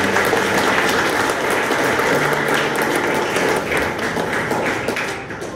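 Audience applauding, a dense clatter of many hands clapping that thins out and dies away near the end.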